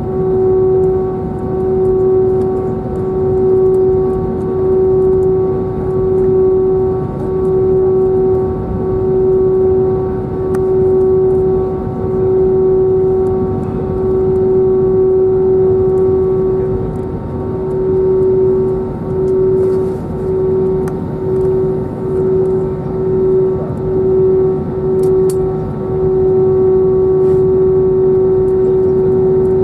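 Airbus A320neo's Pratt & Whitney PW1100G geared turbofan engines at taxi power, heard from inside the cabin over the wing: a steady droning tone over a low rumble. The tone swells and fades every second or two and holds steady near the end.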